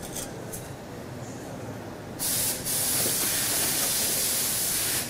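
Compressed air hissing loudly for about three seconds, starting about two seconds in with a brief break just after it starts. It runs over the low, steady hum of the assembly line.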